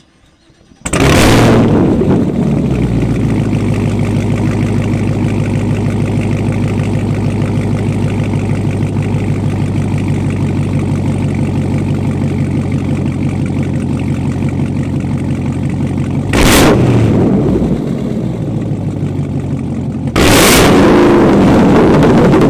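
2022 Camaro ZL1's supercharged 6.2-litre LT4 V8 starting up about a second in with a loud flare, then idling steadily through its new H-pipe cat-back exhaust. A short rev blip comes about three-quarters of the way through, and a longer held rev starts near the end.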